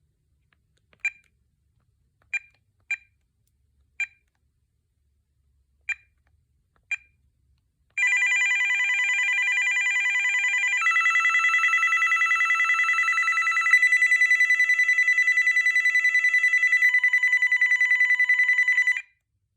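Handset keypad beeps of a VTech T2326 cordless phone, six single presses, then its built-in electronic ringtones playing one after another through the handset speaker, switching to a different tone about every three seconds as the ringer options are stepped through.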